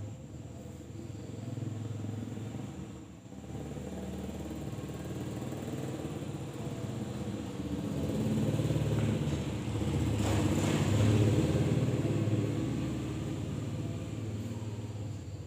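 A motor vehicle's engine passing by, its low rumble growing louder to a peak about ten to eleven seconds in and then fading. A steady high insect trill runs underneath.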